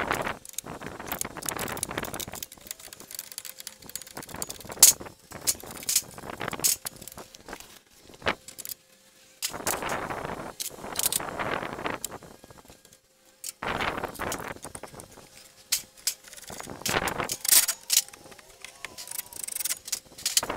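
Metal hand tools and parts clinking and rattling in irregular bursts, with short pauses between them.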